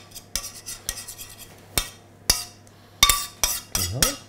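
Metal spoon scraping sauce out of a stainless steel saucepan: short scrapes and sharp metal-on-metal clinks, several separate strokes with a cluster of them near the end.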